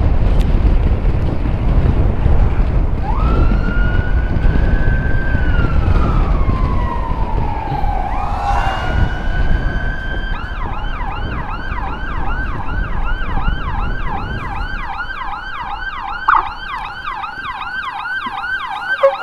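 Electronic siren starting about three seconds in with a slow wail that rises and then falls, switching about ten seconds in to a fast yelp of about three to four sweeps a second. Low rumble and wind from the moving motorcycle lie under the first half.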